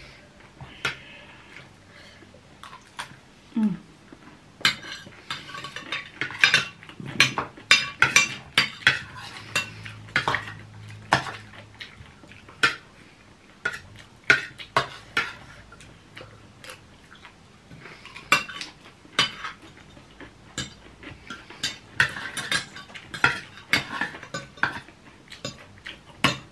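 Metal forks, spoons and knives clinking and scraping on ceramic dinner plates as two people eat, in irregular quick clicks that bunch into busier stretches.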